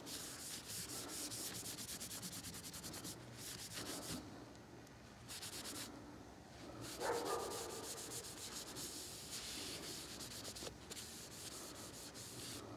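Quick back-and-forth rubbing strokes by hand over the stained wooden stock of a Glenfield Model 60 .22 rifle, with a short pause about four seconds in.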